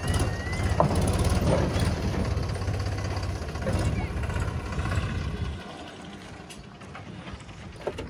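Farm tractor's diesel engine running as it pulls a trailer past, a steady low throb that drops away about five and a half seconds in.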